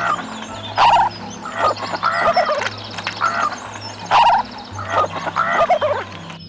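An animal calling over and over: about eight loud, rough calls, roughly one every half second to second, over background music with steady low notes.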